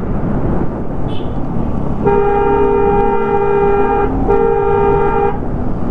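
A vehicle horn sounds twice, a long blast of about two seconds and then a shorter one of about a second, over the steady engine and road noise of a motorcycle riding along.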